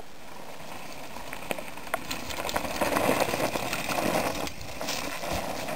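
Mountain bike tyres rolling over a dirt and grass trail, a crackly rustle with scattered clicks and rattles, loudest in the middle.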